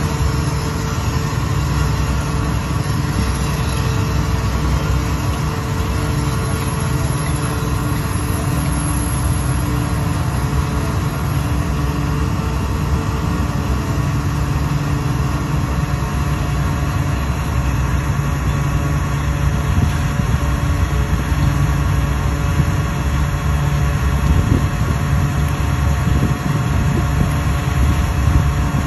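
A passenger ferry's engine running steadily with a continuous low drone, under a faint even rush of wind and water.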